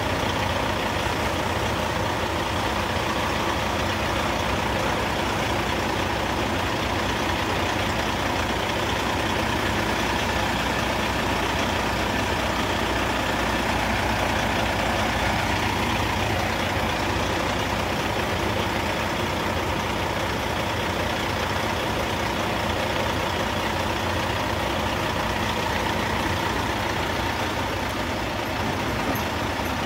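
Heavy dump truck's diesel engine running steadily at an even, unchanging speed.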